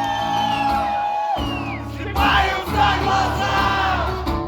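Music with sung vocals: a high note held until about a second and a half in. After it, from about two seconds, several voices sing or shout together over the band.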